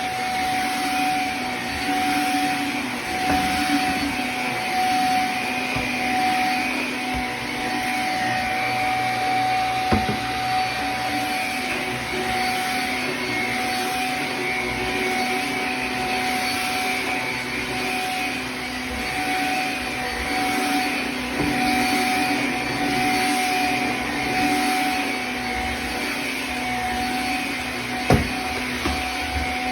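Shark vacuum cleaner running steadily over a carpet runner, its hum swelling and easing in a regular rhythm as it is pushed back and forth. There is a sharp knock about a third of the way in and another near the end.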